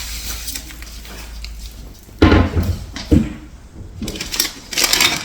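Chair parts being handled: two heavy knocks about a second apart, then a stretch of scraping and clattering as the two iron rods are taken out of the wooden seat plate.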